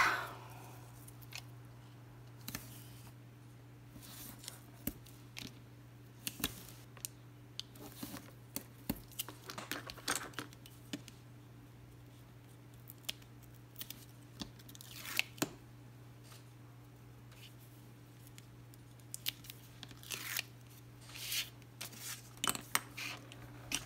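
Double-sided tear-and-tape pulled off its roll and torn several times in short rasps, with small taps and rustles of tape and card on a cutting mat.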